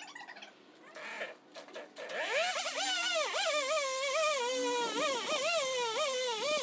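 Chainsaw starting about two seconds in and cutting, its engine pitch rising and dipping repeatedly as it bogs under load in the wood.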